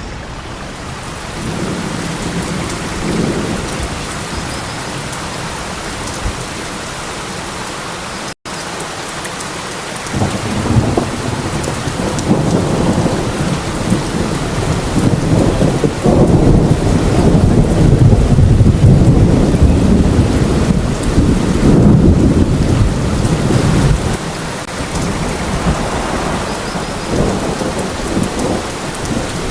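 Steady heavy rain with a long roll of thunder that builds about ten seconds in, rumbles deep and loud for over ten seconds, then eases off under the rain. A split-second gap in the sound comes just before the thunder.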